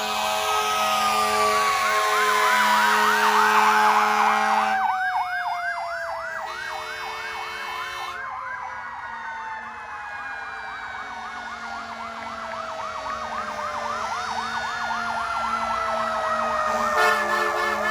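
Several emergency-vehicle sirens sounding together: a slow wail gliding down and back up in pitch, a fast yelp warbling over it through the middle, and steady horn tones underneath. Loudest in the first few seconds, easing in the middle and building again near the end.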